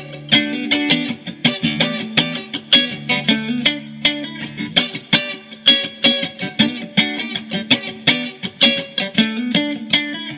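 Mexican-made Fender Stratocaster electric guitar, freshly set up and tuned to drop D, played with quick picked notes several a second over ringing lower notes.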